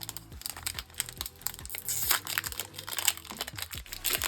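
Trading-card pack wrapper crinkling and cards rustling as they are handled, in a run of irregular short crackles.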